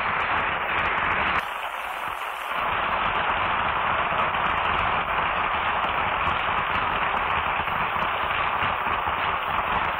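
Studio audience applauding, a dense steady crackle of clapping, on an old radio recording that carries nothing above about 4 kHz.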